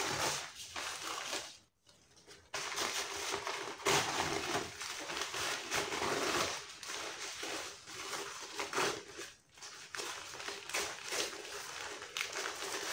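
Paper wrapping rustling and crinkling as it is pulled off a potted Monstera, with a short break about two seconds in.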